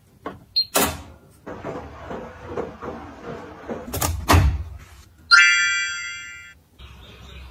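Front-loading washing machine being set and shut: two short beeps from its touch panel as buttons are pressed, a click, then the door swung closed with two knocks and a heavy thud about four seconds in, followed by a ringing electronic tone from the machine that fades out over about a second and a half.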